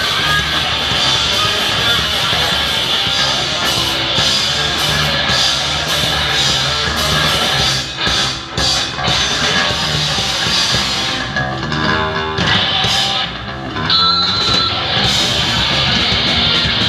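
Heavy rock music played by a band on electric guitar and drum kit, loud throughout, easing off briefly twice in the middle.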